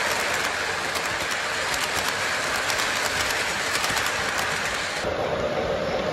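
Lionel O-gauge model freight train rolling past close by, its cars' wheels rumbling and clicking steadily over the track joints. About five seconds in the sound changes to a steadier hum with a few held tones.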